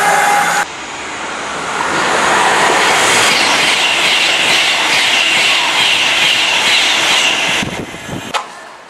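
The first moment holds the pitched engine note of an EWS Class 66 diesel locomotive, cut off abruptly. Then a Virgin Trains express passenger train rushes past at speed, its rush of air and wheels carrying a steady high whine, and fades away as it clears near the end.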